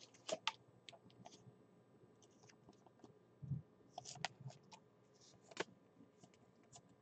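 Faint, scattered clicks and rustles of trading cards being handled, with a soft low thump about three and a half seconds in.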